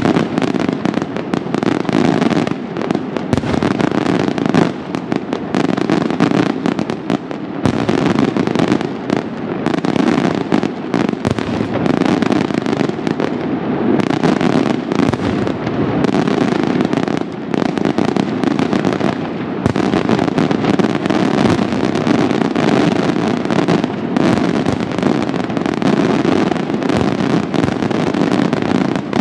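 Italian daytime fireworks (diurno): a dense, unbroken barrage of bangs and crackling reports from bursting shells and salutes, going on without a pause.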